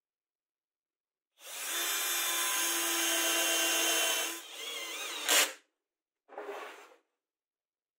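Cordless drill with a countersink bit drilling into plywood: it runs steadily for about three seconds, then drops and wavers in pitch and ends with a sharp, loud noise. A short second burst follows about a second later.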